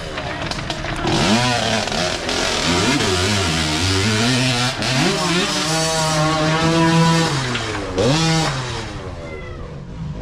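Youth dirt bike engines revving up and down as riders pick their way over rocks and through a creek crossing, with water splashing. The revs climb about a second in, hold high for a couple of seconds in the middle, and rise sharply again near the end.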